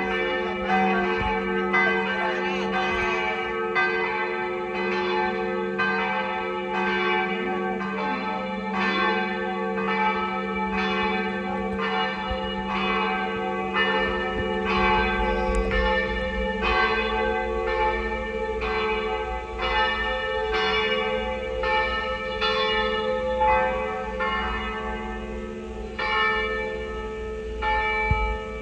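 Church bells of the Cathedral of St. Anastasia's campanile ringing, overlapping with the bells of neighbouring St. Donatus: a bell struck about once a second over held, layered ringing. A low hum dies away about halfway through. Near the end the strikes stop and the ringing fades.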